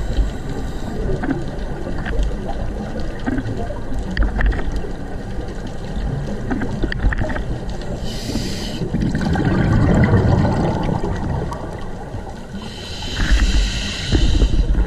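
Underwater recording with a steady low rumble of water moving past the camera, scattered small clicks, and two bursts of a scuba diver's exhaled bubbles, one about eight seconds in and a longer one near the end.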